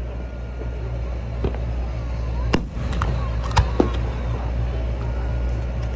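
Fireworks display: a few sharp bangs from aerial shells launching and bursting, about five of them between one and a half and four seconds in, over a steady low rumble.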